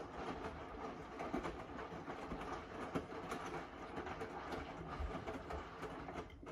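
Hotpoint integrated front-loading washing machine turning its drum on the first rinse of a whites 90 cycle, wet laundry tumbling with a steady clatter. It stops suddenly at the very end as the drum comes to rest.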